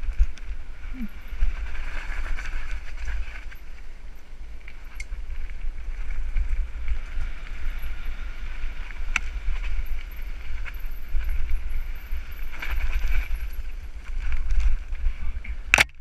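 Mountain bike descending a dirt singletrack: wind buffeting the microphone in a heavy rumble over a steady hiss of tyres and bike rattle, with a few sharp knocks from bumps in the trail. A single loud sharp crack comes just before the end.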